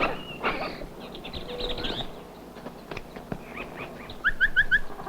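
Bird-like chirping and clicking sound effect: scattered clicks and short chirps, then a quick run of rising chirps, about five a second, near the end.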